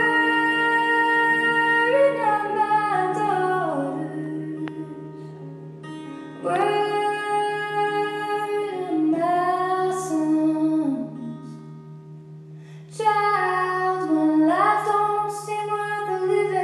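A slow song with a sung voice holding long notes in three phrases, each starting loud and sliding down in pitch at its end, over a steady low drone.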